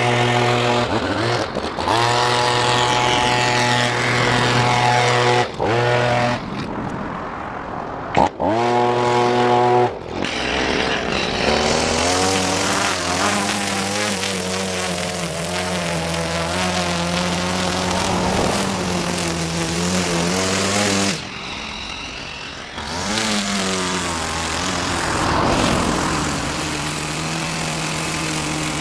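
Handheld leaf blower running at a steady speed, dropping off briefly three times as the trigger is released. About ten seconds in it gives way to a string trimmer edging the lawn, its motor speed wavering up and down, easing off for a couple of seconds and then picking up again near the end.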